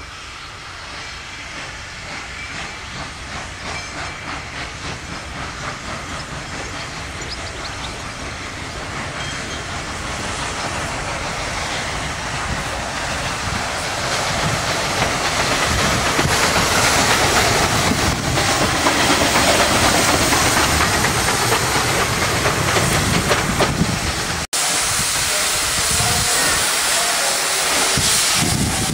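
Steam tank locomotive working under steam as it pulls a train, its exhaust chuffing in a steady rhythm over a hiss of steam. It grows louder over the first half as it comes closer. An abrupt cut about three-quarters of the way through gives way to another loud stretch of a steam train passing.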